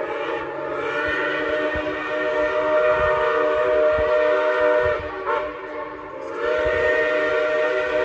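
A steam locomotive's whistle sounds a chord of several steady tones in long held blasts. It cuts off about five seconds in and sounds again a second and a half later.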